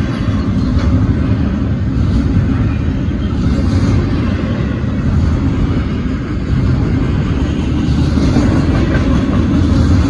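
Double-stack intermodal freight train's well cars rolling past: a loud, steady rumble of steel wheels on the rails.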